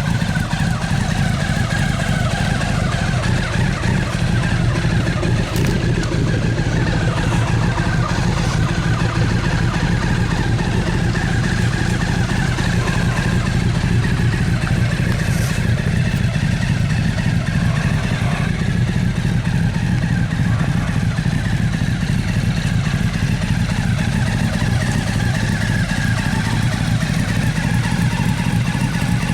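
Honda CBR1100XX Super Blackbird's inline-four engine idling steadily, a low even note with no revving.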